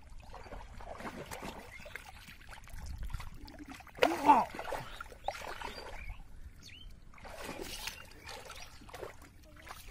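Hands splashing and churning muddy water and soft mud in a shallow paddy-field channel, in irregular sloshes while groping for catfish. A short pitched sound, the loudest moment, comes about four seconds in.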